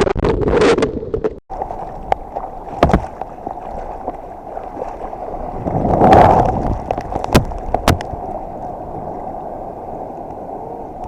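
Water noise in the surf, rushing and sloshing, with a sudden cut about a second and a half in. It swells louder about six seconds in, and a couple of sharp knocks follow.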